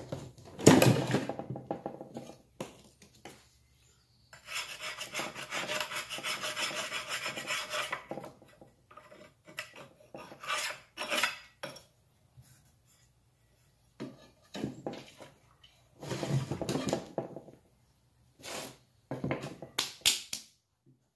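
Sharpened putty-knife scraper scraping old silicone sealer and gasket residue off the pump's metal mating face, in strokes: one long scrape of about four seconds, then several shorter ones. A clatter under a second in is the loudest sound.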